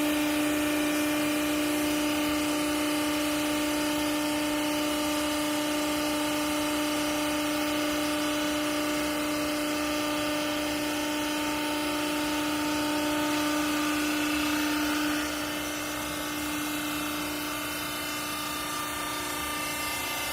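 Cloth compress baler's motor and hydraulic pump running with a steady pitched whine over machine noise. The whine stops abruptly about fifteen seconds in, and quieter machine running continues.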